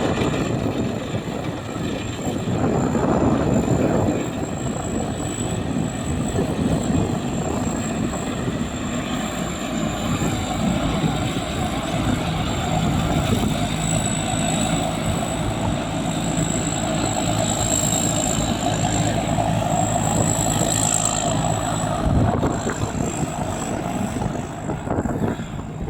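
Rice combine harvester running steadily, engine and machinery noise with a thin, constant high whine.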